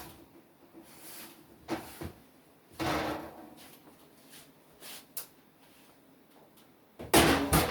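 Oven door and pan being handled as a baked lasagna is taken out of the oven: a series of knocks and short sliding clunks, with the loudest clatter near the end.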